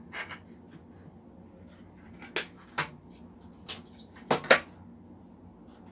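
About six sharp clicks and light clatters as a small plastic drill-bit case is handled and a metal drill bit is taken out of it. The loudest pair of clicks comes about four and a half seconds in.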